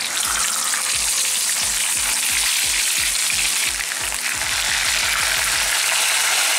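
Marinated whole pink perch sizzling in hot coconut oil in a frying pan. A loud, steady sizzle starts as the first fish is laid in and keeps going as a second fish goes in.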